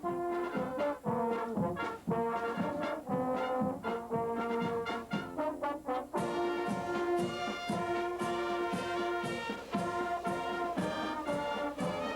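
Brass band music: trombones and trumpets playing held notes over a steady drumbeat, growing brighter about six seconds in.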